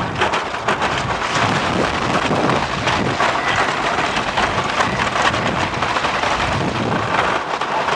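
Wooden roller coaster train running at speed over its wooden track, heard from the front seat: a loud, continuous rumble full of rapid clattering from the wheels over the track joints.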